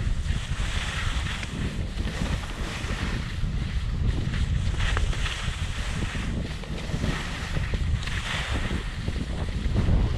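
Wind rumbling on a GoPro Hero 7 Black's microphone during a ski run, with a hiss of skis sliding on snow that swells and fades every two to three seconds as the turns go.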